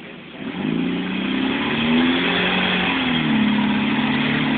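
Four-cylinder off-road 4x4 engine coming onto the throttle hard about half a second in, its pitch climbing, easing slightly, then rising again as it pushes at a rock ledge under load.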